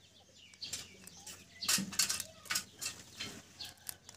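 Quail eggshell and dried membrane crackling and snapping as a blade picks them away to free a chick stuck in its shell. Irregular sharp clicks, loudest a little under two seconds in.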